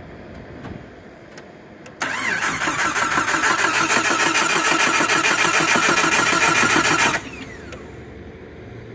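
A Jeep XJ Cherokee's starter cranking the engine for about five seconds in a steady rhythmic whirr, then stopping without the engine catching: a crank-no-start.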